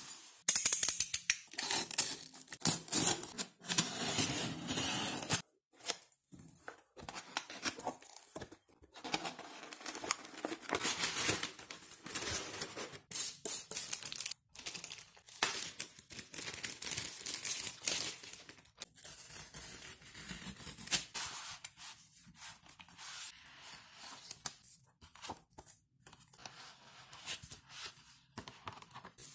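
Cardboard shipping box and Kindle packaging being torn open and handled: tearing, scraping and crinkling of cardboard and paper. It is loudest and most continuous for about the first five seconds, then comes in scattered bursts.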